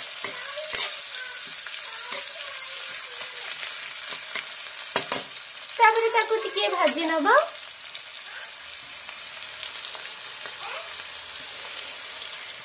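Chopped onions and green chillies sizzling in hot oil in a steel kadai, with scattered clicks of stirring against the pan. A short high-pitched voice is heard briefly about six seconds in.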